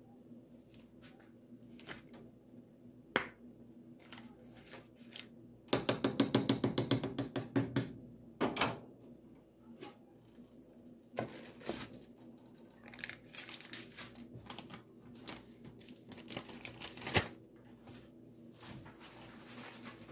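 Aluminium foil crinkling and scattered clicks and taps as a pan is handled and covered, with a quick run of rapid taps about six seconds in, over a faint steady hum.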